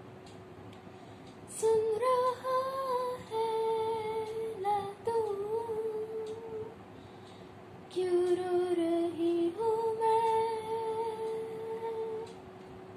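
A 13-year-old girl humming a wordless melody in long held notes, in two phrases, the first about one and a half seconds in and the second about eight seconds in, over a steady held tone.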